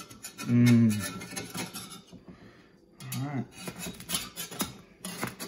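Slotted metal spatula scraping and clicking against a cast iron skillet as it is worked under a thick pizza crust, pausing briefly in the middle. Two short vocal sounds come with it, the louder about half a second in.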